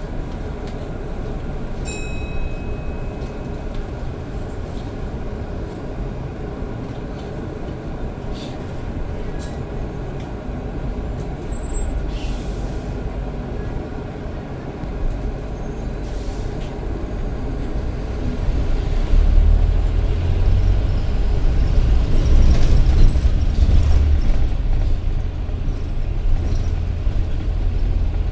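Bus heard from inside, running with a steady rumble. A short beep comes about two seconds in, then a brief pneumatic hiss of air being released near the middle. In the second half the engine and drive rumble grows louder as the bus pulls away and accelerates.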